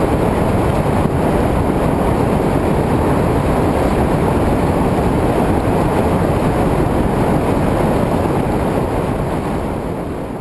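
River rapids rushing over rock, a steady noise that fades out near the end.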